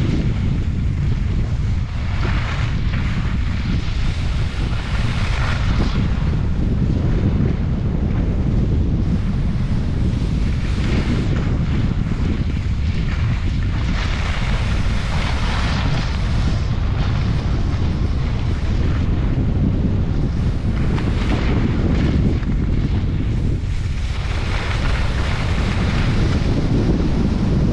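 Wind buffeting a camera microphone while skiing downhill at speed: a steady heavy rumble, with a higher rushing hiss that swells and fades every few seconds.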